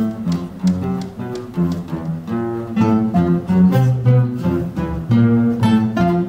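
Classical guitar ensemble playing a piece together: plucked melody and chords over a low bass line. The full group comes in loudly right at the start.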